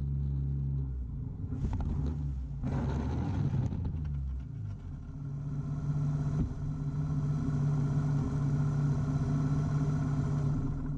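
Yamaha Virago XV250 V-twin engine running as the motorcycle goes down in a low-speed crash. The bike hits and slides along the road about one and a half to four seconds in, and then the engine keeps running steadily with the bike lying on its side.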